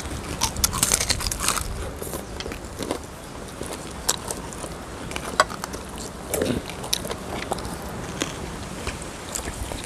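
Close-up eating sounds: irregular crisp crunching and chewing of food, with scattered sharp crackles and clicks.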